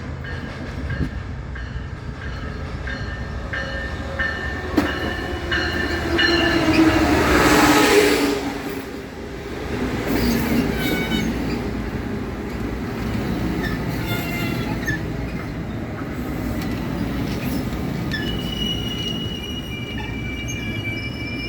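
MARC commuter train led by an SC-44 Charger diesel-electric locomotive pulling into a station: the locomotive passes loudest about seven to eight seconds in, then the coaches roll by slowing, with high-pitched squealing from the brakes and wheels, strongest near the end as the train stops.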